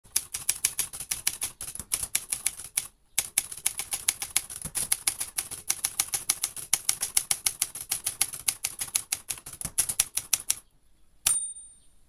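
Typebar typewriter typing steadily, rapid keystrokes about five a second with one brief pause. Near the end the typing stops and the carriage's margin bell rings once, signalling the approaching end of the line.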